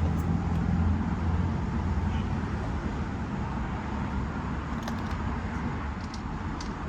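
Low, steady rumble of a motor vehicle engine, slowly fading, with a few faint clicks near the end.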